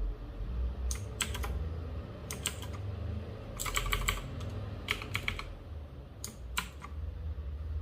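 Keys of a Cosmic Byte GK16 Firefly mechanical keyboard with clicky blue switches being pressed in short scattered groups of sharp clicks, a flurry of several keystrokes about four seconds in.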